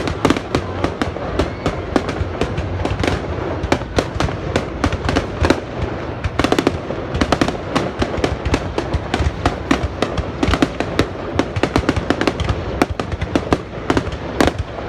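Fireworks going off in a dense, continuous barrage: many sharp bangs and cracks a second at an irregular rhythm, with no pause.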